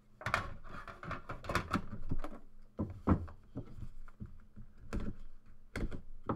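A cardboard trading-card pack box being handled on a table: rubbing and scraping as it is drawn out of its outer box and turned in the hand, then several separate knocks as it is set down and tapped on the tabletop.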